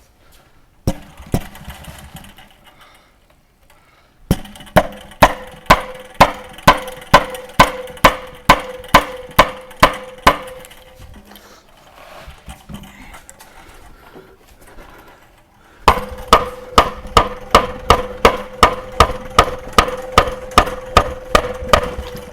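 Power impact wrench hammering on the water heater's anode rod hex through a 1-1/16 inch socket, trying to break the rod loose. It runs in two long bursts, each a steady motor tone with sharp blows about three times a second, after a couple of single knocks near the start.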